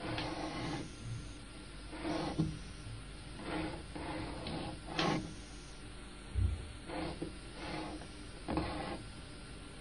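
Chalk scratching on a blackboard while writing letters: a series of short scratchy strokes, roughly a second apart, with a dull knock about six seconds in.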